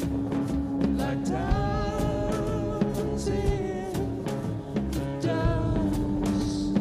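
Live band music: drum hits over a steady synthesizer drone, with a singing voice coming in about a second and a half in.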